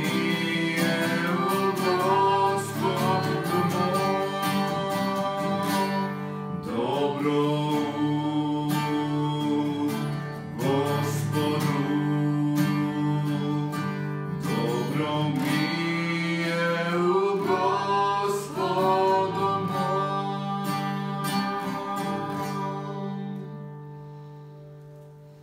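Acoustic guitar strummed in steady chords under a man and a woman singing together. Near the end the singing stops and the guitar fades out.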